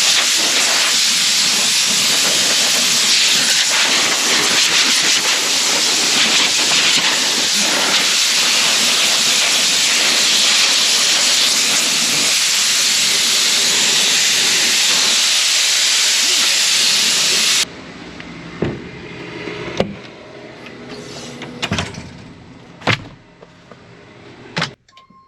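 Loud, steady hiss of a high-pressure spray that cuts off suddenly about 17 seconds in, followed by a few faint clicks and knocks.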